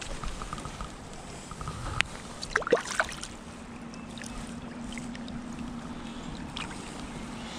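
Shallow creek water splashing and lapping around a hand as a rainbow trout is released, with a few sharp splashes about two to three seconds in. A faint steady hum runs underneath from about two seconds in.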